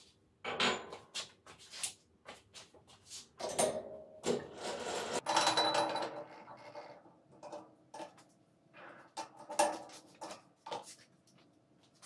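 Workpiece being set into a metal lathe's three-jaw chuck and clamped: a run of short metal clicks and knocks, with a longer stretch of rubbing and rattling in the middle.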